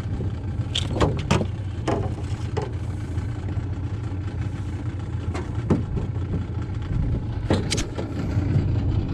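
Boat motor idling steadily on an aluminum jon boat, with several sharp knocks against the hull.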